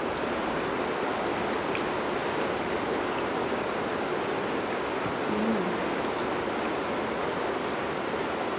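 Steady rain, an even, unbroken hiss, with a few faint clicks of forks on plates.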